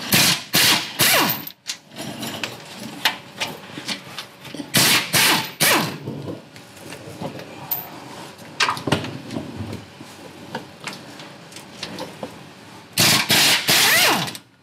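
Pneumatic ratchet on a long extension running in repeated short bursts, about a second at a time, undoing the transmission crossmember bolts.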